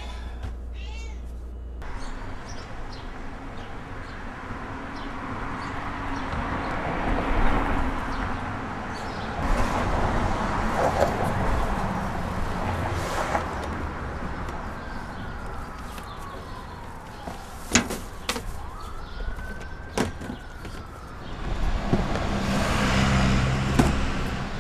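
Steady outdoor background noise with a couple of sharp knocks from a metal dumpster being loaded, and two long wailing tones near the middle, the first gliding down and the second rising and falling.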